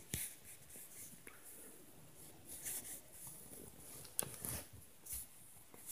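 Faint, irregular knocks and rustles, with one sharp click about four seconds in.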